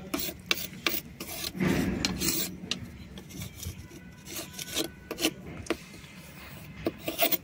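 Serrated blade scraping and rasping across a soft white shale slab in repeated uneven strokes, shaving off powder and flakes. One louder, longer stroke comes about two seconds in.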